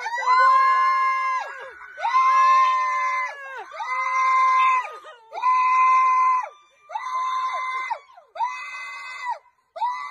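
A person screaming over and over: about seven long, high-pitched screams, each roughly a second long, growing quieter toward the end.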